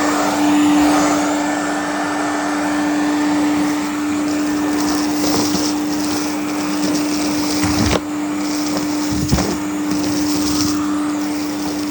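Hoover AquaMaster vacuum cleaner running with a steady motor hum and rushing suction that swells and fades as it works. A couple of sharp knocks come about two-thirds of the way through.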